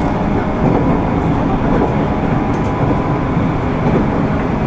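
JR East 205 series (600 subseries) commuter electric train heard from inside the car while running between stations: a steady rumble of the wheels on the rails.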